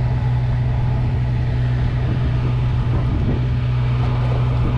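Steady low drone of the boat's engine running, an even hum with a rumble beneath it.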